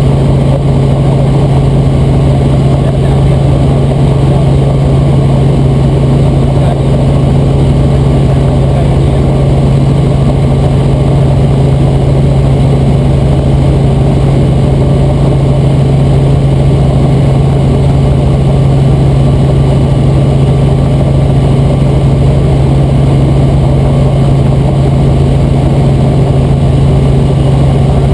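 Robinson R44 Raven II helicopter in steady cruise flight, heard from inside the cabin: a loud, even drone of engine and rotors with a strong low hum, unchanging throughout.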